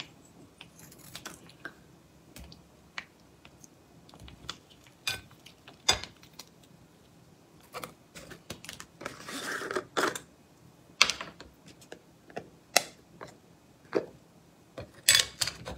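Small handling sounds at the table: scattered light clicks and taps with a brief rustle a little past halfway, from scissors snipping open a sauce sachet and a glass jar of chili oil being opened.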